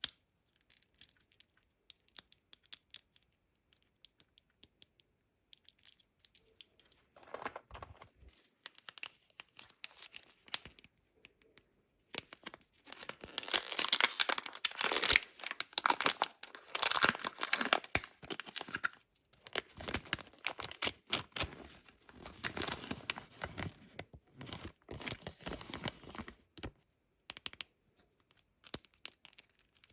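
Kinder Joy surprise egg wrappers being torn open and crinkled by hand. Scattered light clicks and taps for the first dozen seconds, then several seconds of dense tearing and crinkling with short pauses, then light clicks again near the end.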